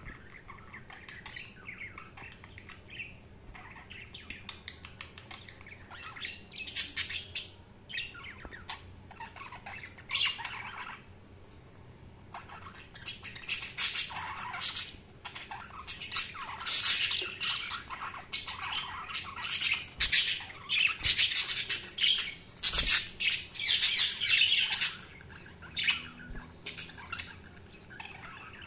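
Budgerigars (budgies) chirping, warbling and squawking in many short, high calls, sparse and soft at first, then busier and louder from about halfway through.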